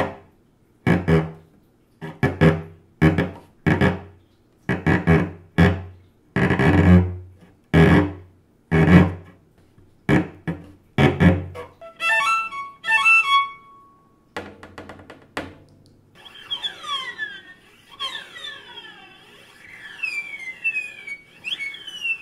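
Cello bowed to imitate animals: first a run of short, separate grunting strokes for a pig, then about a second into the second half a quick, stepped high figure for a woodpecker, then high sliding notes that fall in pitch, repeated several times, imitating seagull cries.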